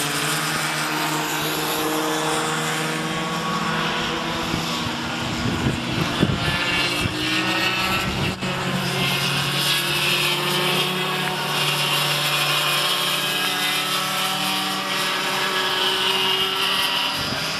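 Several cadet go-kart engines racing past on a kart circuit, their high buzzing notes overlapping and gliding up and down in pitch as the karts accelerate and slow for corners.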